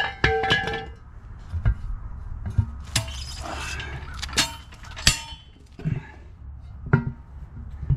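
Steel tire spoons clinking and knocking against the wheel rim as the tire bead is levered off. A ringing clink opens, followed by about half a dozen separate sharp knocks with scraping between them.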